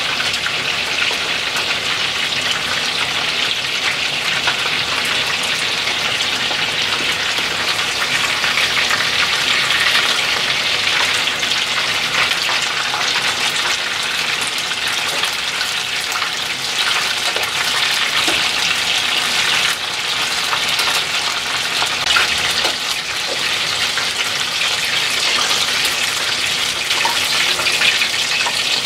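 Chicken karaage pieces, coated in potato starch, deep-frying in hot oil: a steady, dense sizzle with fine, high-pitched crackling (pachi-pachi).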